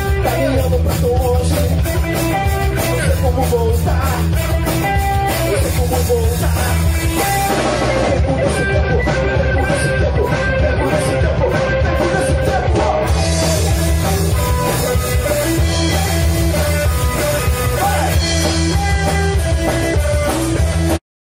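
Live rock trio playing an instrumental passage: electric guitar, bass guitar and drum kit. The music cuts off abruptly near the end.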